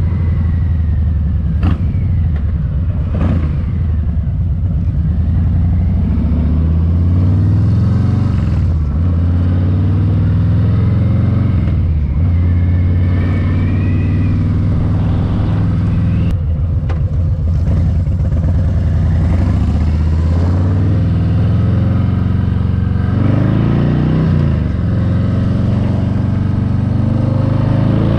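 Harley-Davidson Street Bob 114's Milwaukee-Eight 114 V-twin running through Shark Road slip-on mufflers, its pitch rising and falling again and again as the engine revs up and drops back.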